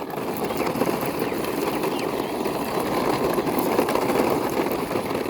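Toy army jeep's plastic wheels rolling and rattling steadily across a floor as it is pushed by hand.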